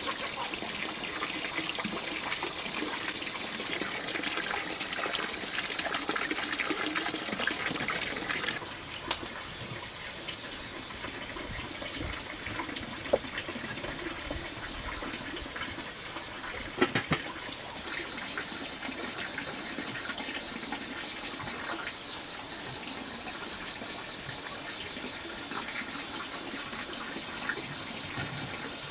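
Running water splashing and trickling steadily, heavier for the first eight seconds or so and then lighter, with a few light knocks.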